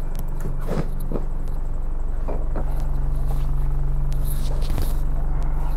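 A bus engine running with a steady low hum, heard from inside the passenger saloon. It gets a little louder about halfway through, and a few short knocks and clicks sound in the first half.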